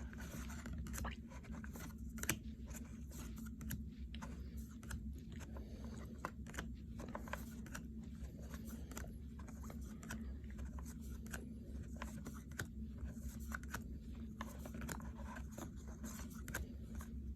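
Baseball trading cards being handled and flipped through by hand: an irregular run of light clicks and rustles over a steady low hum.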